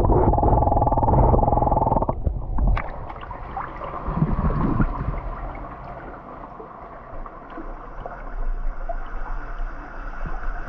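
Water gurgling over a phone's microphone as it dips into a shallow creek: a loud bubbling buzz for about two seconds. Then quieter sloshing and small splashes as a hand moves in the shallow water.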